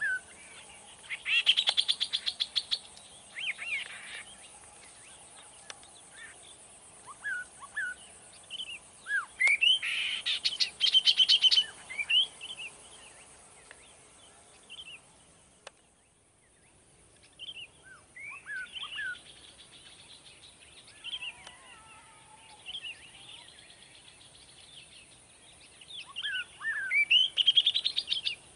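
Songbirds singing from bushes and trees: repeated phrases of rapid trills mixed with short whistled notes that slide up and down, with a few single chirps between the phrases.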